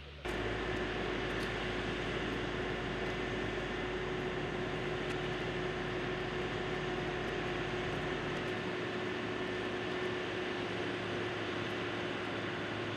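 Heavy diesel paving machinery, an asphalt paver and a dump truck, running steadily while the truck unloads blacktop into the paver. A steady drone carries a constant hum, and the deepest rumble drops away about eight seconds in.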